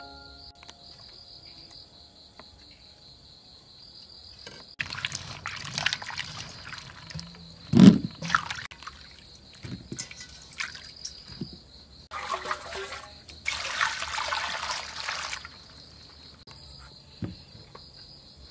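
Water splashing and trickling as fresh strawberries are rinsed and drained, in two stretches, with a single loud knock about eight seconds in. Crickets chirp steadily at the start and near the end.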